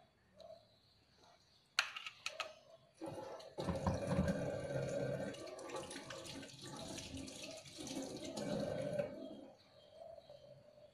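Plastic bag being handled: a sharp crackle about two seconds in, then continuous rustling and crinkling with a few low thumps from about three seconds in until about nine and a half seconds.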